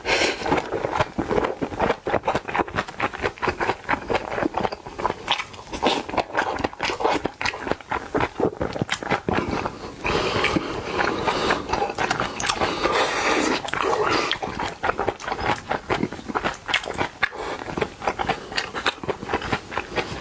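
Close-miked mouth sounds of a man chewing mouthfuls of bibimbap and spicy cabbage soup: a continuous run of small smacks and clicks.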